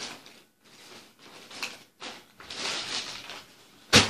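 Rustling and handling noise from someone working with plastic K'NEX parts, then a single sharp bang near the end, by far the loudest sound, which he calls a huge bang.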